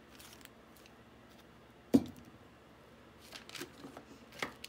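Objects being handled on a work table: one sharp knock about two seconds in, then a few soft taps and rustles.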